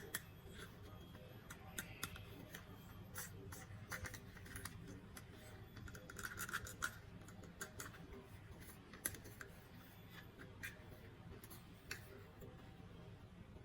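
Faint, scattered clicks and scratches of a plastic toy and its packaging being handled and opened, with a brief louder scratchy patch about six seconds in.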